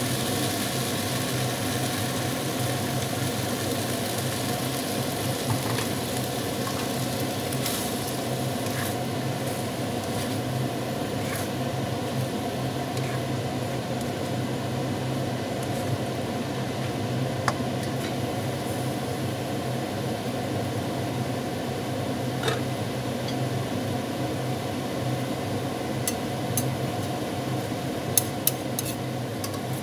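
Chicken and broccoli stir-fry sizzling steadily in a wok as it is stirred, over a steady low hum. Scattered clicks of the utensils against the pan, with several in quick succession near the end.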